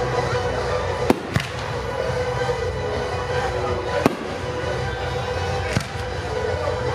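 Fireworks shells exploding in four sharp bangs, two in quick succession about a second in, then one near the middle and one later, over steady music playing throughout.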